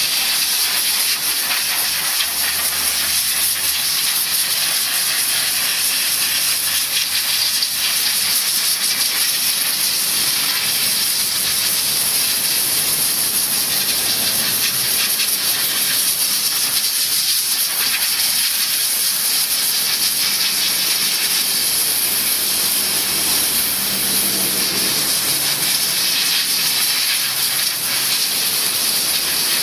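Steady, high hiss of a Jieneng commercial steam cleaner's spray gun jetting steam over a car engine.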